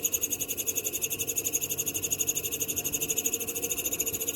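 Panasonic drum-type washing machine's motor squealing, a high-pitched kyuru-kyuru chirp that pulses evenly at about six times a second, over a faint low hum. The abnormal noise comes from the motor, not the drum shaft.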